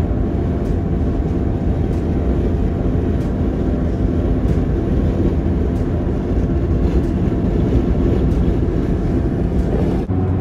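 Steady low road rumble heard from inside a car cruising at highway speed: tyre and engine noise with a faint steady drone. It dips for an instant near the end and comes back with a deeper drone.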